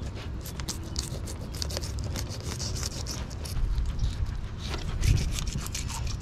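Fillet knife slicing along the backbone of a red drum, making many small crackling clicks and scrapes as it cuts through scales and flesh along the bone, over a low steady rumble.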